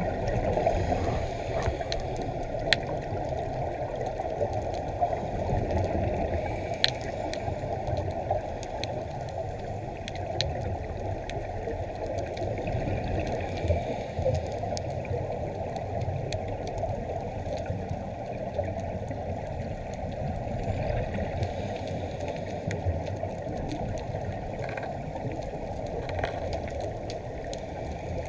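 Muffled underwater sound through a GoPro's waterproof housing: a steady low rumble of water with scuba divers' exhaled bubbles gurgling, and a few sharp clicks.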